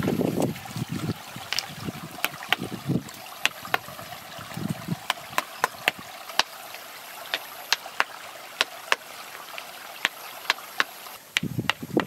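Feet splashing through shallow muddy water, then sharp clacks of stones knocking against each other as they are set by hand on a stone-and-mud wall, roughly one a second. More splashing near the end, over a faint steady trickle of water.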